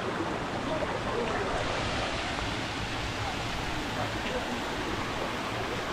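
Steady rushing of a mountain waterfall and stream, with no breaks or changes.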